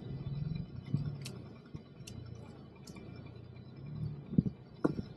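Cabin noise of an emergency vehicle driving a training course: a low engine and road drone, with a few sharp ticks, three of them under a second apart about a second in, and more near the end.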